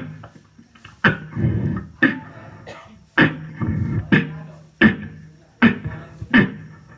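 Beatboxing: a mouth-made drum beat with a sharp percussive hit roughly once a second and a held low bass hum and lighter sounds filling the gaps between.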